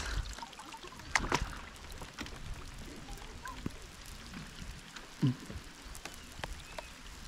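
Light rain: scattered drops pattering on the river and the plastic kayak as irregular small ticks, with a couple of louder knocks about a second in. A short low voice sound a little after five seconds in.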